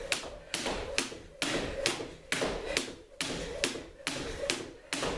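Skipping with a jump rope on a hardwood floor: the rope slapping the floor and feet landing in a steady rhythm of about two strikes a second.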